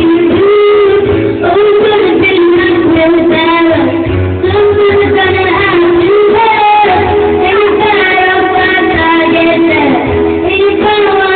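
A young girl singing a slow pop ballad into a handheld microphone over live band accompaniment, with long held notes.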